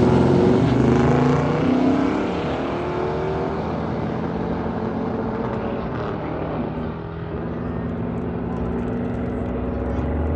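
Car engine running with a steady drone, louder for the first two seconds and then settling lower.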